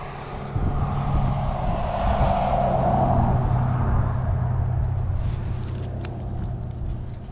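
A motor vehicle passing by: engine hum and tyre noise swell to a peak about three seconds in, then fade away.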